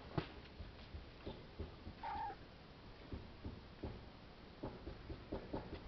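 A cat gives one short meow about two seconds in, against scattered faint clicks and rustles.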